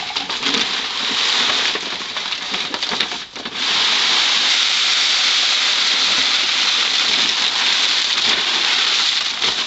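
Dry chicken feed poured from a large paper feed sack into a paper grocery bag: after some rustling of the paper sacks, a steady rushing hiss of grain pouring sets in a few seconds in and keeps on evenly.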